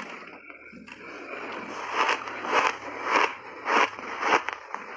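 Close-miked chewing of crunchy refrozen purple block ice: quieter at first, then about five loud crunches roughly every half second from about two seconds in.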